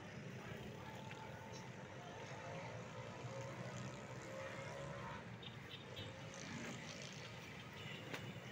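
Faint distant city traffic: a steady low hum, with one vehicle engine slowly rising in pitch over the first few seconds. A few faint high chirps come about five and a half seconds in.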